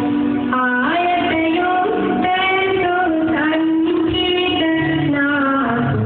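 Background music: a woman's voice singing a melody in held, sliding notes over instrumental accompaniment.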